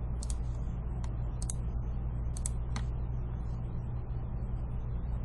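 A few scattered, sharp clicks at a computer, about half a dozen spread irregularly, over a steady low hum.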